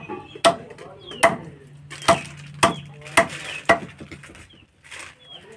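A short hatchet chopping raw chicken on the bone against a wooden log block: a run of sharp chops, roughly one every half second to second, over the first four seconds, then one fainter stroke. Faint bird or chicken calls sound between the strokes.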